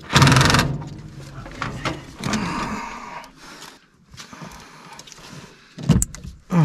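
Tool and handling noise inside a furnace cabinet during an inducer motor swap: a short, loud, rapid rattle at the start, scraping about two seconds in, and two sharp knocks near the end.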